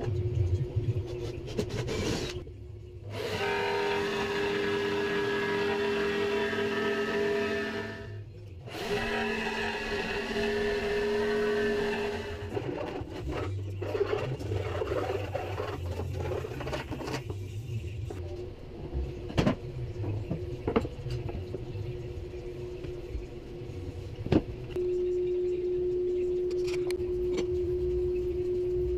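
Workshop power-tool noise: a motor running steadily in long stretches, broken off abruptly twice, then scattered sharp knocks and taps.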